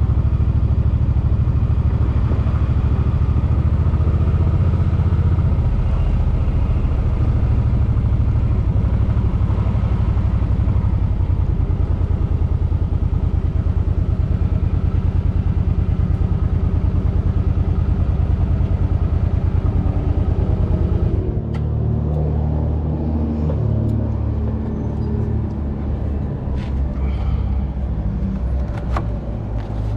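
Suzuki Boulevard M50's V-twin engine running steadily under way. About 21 seconds in the engine note drops to a slower, uneven low rumble, and a few sharp clicks follow near the end.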